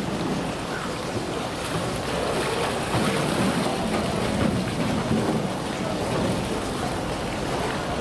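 Water sloshing and churning in a polar bear's pool as the bear moves about in it. It is a steady wash of water noise, swelling a little in the middle.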